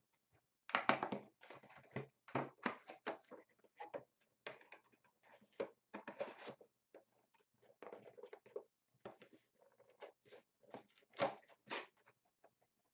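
Crinkling and rustling of foil trading-card packs and their cardboard box being handled, a string of short irregular crackles with brief gaps, the loudest about a second in and again near the end.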